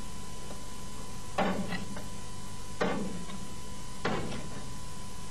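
Knife chopping raw chicken into pieces on a cutting board: three chops, evenly spaced about a second and a half apart.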